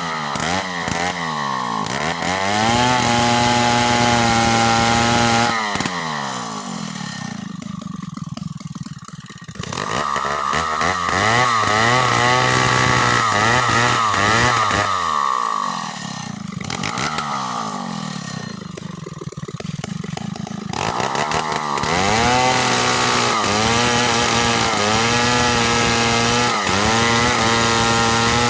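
Two-stroke chainsaw with a 25-inch bar cutting a mango tree: the engine revs up to full throttle and holds there for several seconds, then falls back to idle, three times over.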